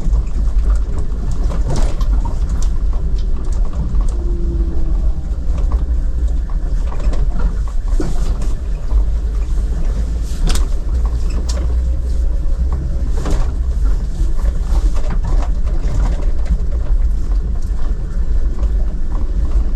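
Car driving, with a steady low rumble of engine and road noise and scattered sharp knocks and rattles, the clearest about two, eight, ten and thirteen seconds in.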